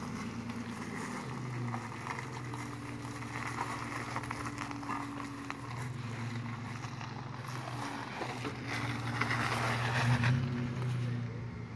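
Pickup truck engine running at low revs as the truck crawls slowly up a rock ledge, with a rough crunching of tyres on grit and rock; it gets a little louder about nine to ten seconds in.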